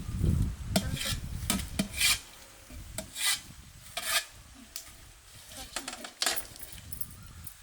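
A utensil scraping and stirring in a cooking pot: a few separate short rasping strokes over a low rumble that fades after the first two seconds.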